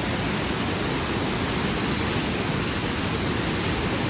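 Steady, loud rush of falling water from a waterfall close by, an even hiss with no breaks.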